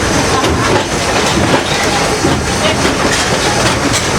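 A moving passenger train heard from on board: the coach's wheels rumbling and clattering over the rails at a steady pace.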